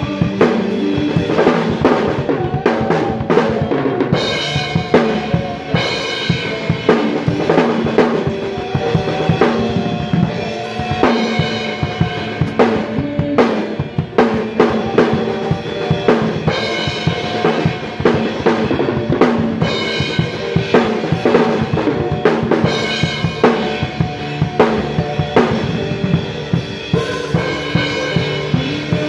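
Drum kit played with sticks in a steady groove, with snare, bass drum and cymbal hits going on throughout.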